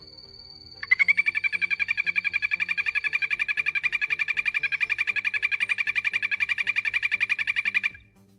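A frog calling: one long, fast pulsing trill of about seven seconds, starting abruptly about a second in and cutting off near the end.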